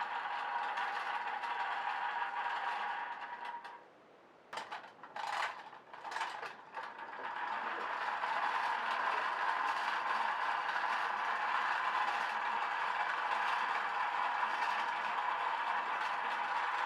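A clockwork wind-up toy robot's spring motor runs with a steady whirr of gears and light clatter. About four seconds in it stops, a few clicks and knocks follow, and the whirr starts again about seven seconds in.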